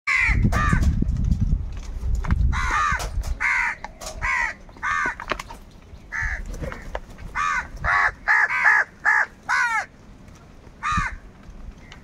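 A group of house crows cawing over and over, in single calls and quick runs of two or three, the calls crowding closest together in the second half. A low rumble sits under the first two seconds.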